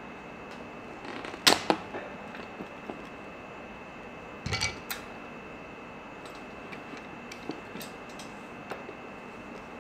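Steel pliers clicking and scraping against a cotter pin and washer on a hand truck wheel's axle as the pin's leg is pinched and bent over. A few sharp metallic clicks, the loudest about a second and a half in and another cluster around four and a half seconds, then lighter ticks.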